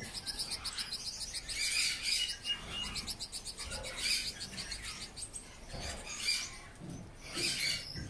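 Canaries chirping and singing, with rapid high trills coming in short bursts every second or two.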